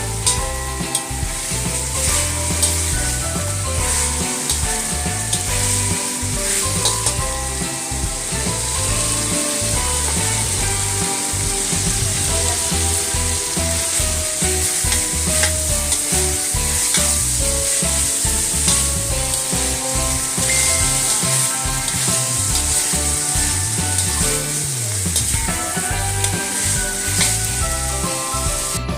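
Food sizzling as it fries in a hot pan, stirred now and then, over background music.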